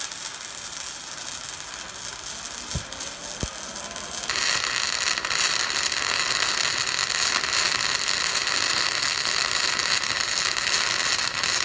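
Self-shielded flux-core welding arc from a Fronius TransSteel 2200 running a bead on steel plate, a steady dense crackle. It gets louder and sharper about four seconds in and cuts off suddenly near the end.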